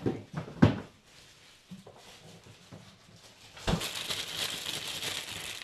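Two sharp knocks in the first second. Then, from a thump almost four seconds in, a plastic bag crinkles steadily as it is handled and celery is taken out of it.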